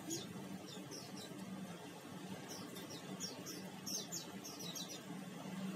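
Faint birds chirping: short, high, falling chirps in quick runs of three or four, over a low steady hum.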